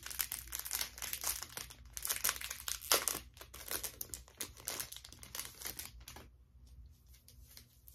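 Clear plastic wrapper of a sticker pack crinkling and crackling as it is handled and opened. The crackles are dense for about six seconds, then thin out to a few faint rustles near the end.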